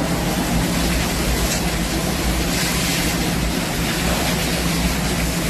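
A machine running steadily: a low, even hum under a constant rushing hiss.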